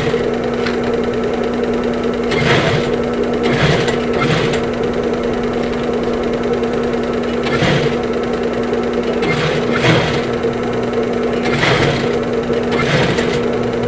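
Sewing machine running, with a steady motor hum and short bursts of stitching every second or two.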